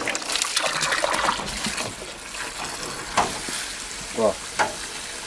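Water running and splashing with a steady hiss, with a few sharp knocks and a short voiced sound over it.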